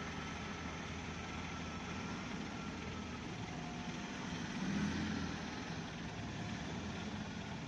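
Diesel engine of a large mining haul truck running as the truck drives past. The sound swells briefly about five seconds in.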